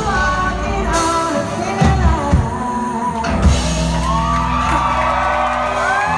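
Live band playing a pop-rock song, a woman singing over electric guitar, bass and drums, ending on long held notes. Shouts and whoops come from the crowd, and it is heard through a phone microphone in the audience.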